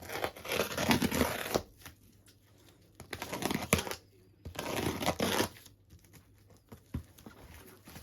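Packaging being torn open and crinkled by hand, in three rough tearing bursts of about a second each, with a few sharp clicks and quieter handling noise between them.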